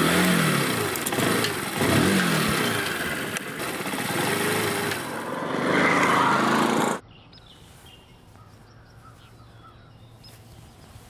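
Motorcycle engine running hard and pulling away, its pitch rising and falling as it revs, which cuts off abruptly about seven seconds in. A much quieter outdoor background follows.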